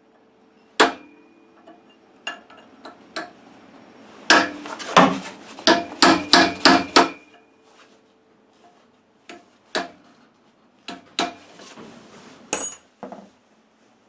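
A hammer strikes a steel tool held against the flywheel nut's locking plate on a Kohler K440-2AS engine, bending the plate's tab back to free the nut. The metal-on-metal blows come as a single hit, then a few light taps, then a quick run of about ten blows in the middle, then scattered taps near the end, one with a brief high ring.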